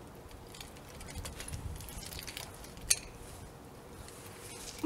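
Nunchucks being spun and caught, their chain jangling faintly, with one sharp click about three seconds in.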